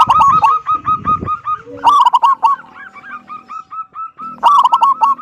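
Zebra dove cooing loudly: fast runs of short hooked notes, in three loud bursts about two seconds apart with softer notes between them.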